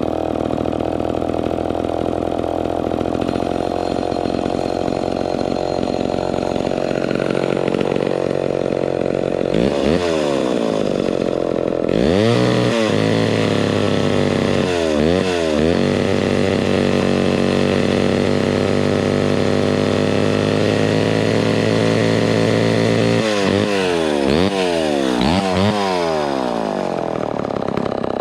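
Homelite XL12 two-stroke chainsaw engine running, with the throttle blipped several times so it revs up and drops back, mostly in quick bursts partway through and a cluster near the end.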